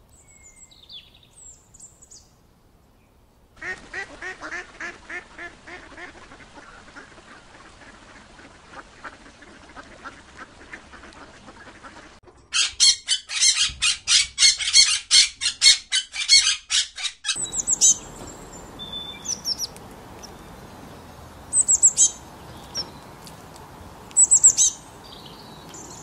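A series of bird calls from different birds in turn: faint chirps at first, then a long run of rapid repeated calls, then monk parakeets squawking loudly and fast for about five seconds near the middle, then scattered short, sharp chirps.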